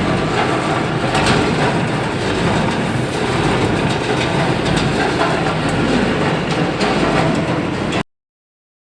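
Continuous charcoal carbonization furnace plant running: a steady mechanical rumble with scattered clattering clicks, which cuts off suddenly near the end.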